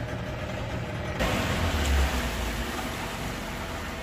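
Small boat's outboard motor running steadily over the rush of water along the hull. About a second in, a louder rush of wind and water sets in with a low rumble, then eases off.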